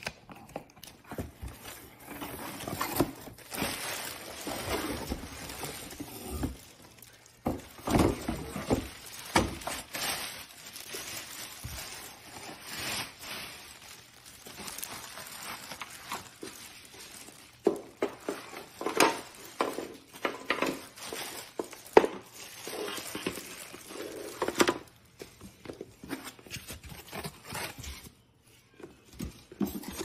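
Cardboard box and plastic wrapping being handled: irregular rustling, crinkling and scraping with scattered short knocks, dying down near the end.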